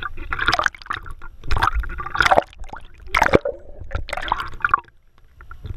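Pool water splashing and gurgling in irregular bursts as the camera dips in and out of the water.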